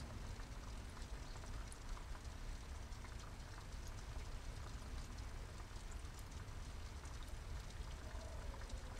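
Water pouring steadily from a thin inlet pipe into a small pond, a continuous splashing trickle with a light patter of drops, over a low rumble.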